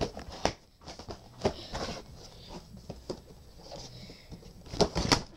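Handling noise: irregular light knocks, clicks and rubbing from a hand fumbling with the camera, with a quick cluster of knocks near the end.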